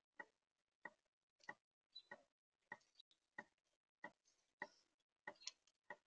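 Female northern cardinal cracking seeds close to the microphone: a steady series of faint, sharp clicks, about two a second.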